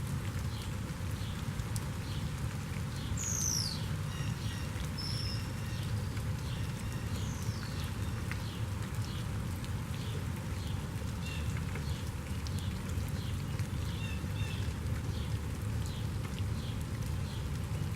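Steady rain falling, with birds singing over it: a faint high chirp repeated about every half second, and a clear falling whistle about three seconds in among other short high calls.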